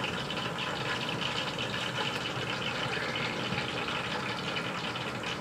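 Faint wet rustling of a hand mixing sliced brinjal pieces into a thick flour-and-spice batter in a steel bowl, over a steady background hum.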